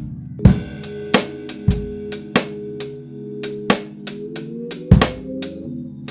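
A recorded music track: a drum kit plays an uneven, off-kilter groove of kick, snare and cymbal hits over sustained chords, with one note sliding upward partway through.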